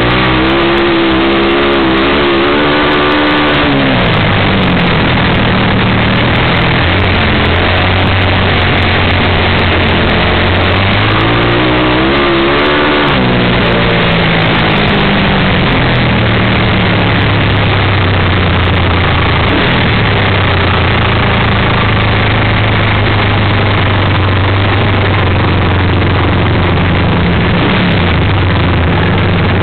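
Vintage flat-track racing motorcycle engine heard from the onboard camera at full race pace, its pitch dropping as it backs off for the turns, most clearly about three seconds in and again around thirteen seconds, then climbing again on the straights. Dense rushing noise from wind and the engine runs under it at a loud, unvarying level.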